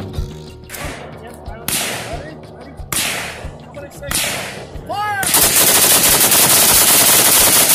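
AR-15-style rifle fitted with a binary trigger: four single shots about a second apart, each with a long echoing tail, then from about two-thirds of the way in a rapid binary-trigger dump of shots that run together into one loud, continuous burst.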